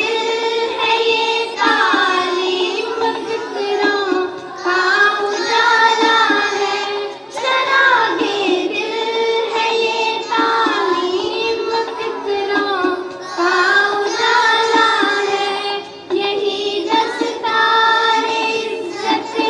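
Children singing a song in melodic phrases of about three seconds each, with brief breaks between them.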